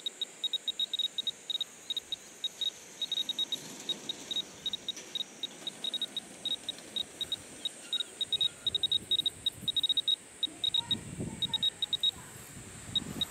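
Iwatsu SV-2000 radiation dose monitor beeping in short, high pips at irregular random intervals, several a second. Each pip marks detected gamma radiation, here at a reading of about 0.26 microsieverts per hour. A steady high hiss runs behind, and some low rustling comes in about eight seconds in.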